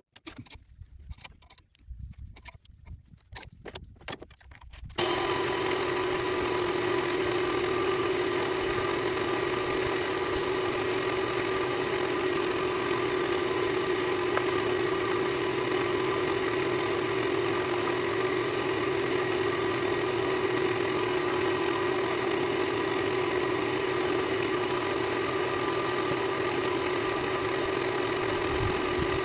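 A few light handling clicks, then a wood lathe motor switches on about five seconds in and runs with a steady, even hum.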